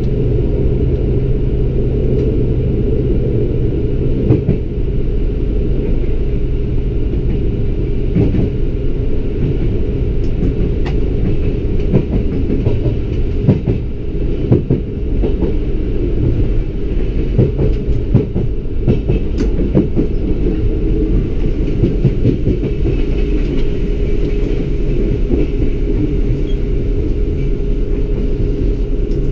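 Lint 41 diesel railcar running, heard from inside the driver's cab: a steady low rumble with a fixed hum, and irregular clicks and knocks as the wheels run over rail joints and switches.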